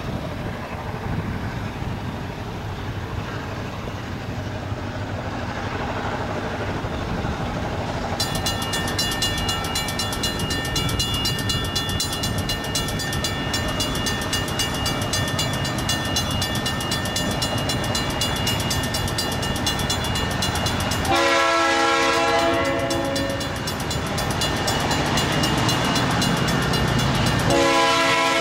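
Low rumble of approaching EMD SD38-2 diesel locomotives grows louder. A grade-crossing bell starts ringing about eight seconds in. The lead locomotive sounds its air horn in a long blast about three-quarters of the way through, and again near the end.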